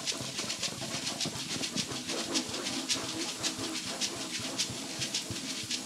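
Shaken hand percussion playing a steady pulse, a hissing jingle about four times a second, with faint low notes underneath.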